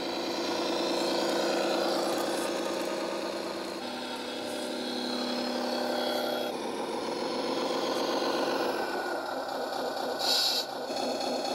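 Simulated V8 truck engine sound from the Tamiya 1/14 Knight Hauler's sound unit, playing through its small speaker as the truck drives, the engine note shifting up and down a couple of times. A short hiss sounds about ten seconds in.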